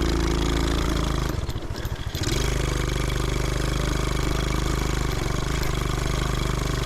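125cc single-cylinder engine of a homemade reverse trike running steadily under way, dropping to a slow putter for about a second about a second and a half in, then picking back up and holding steady.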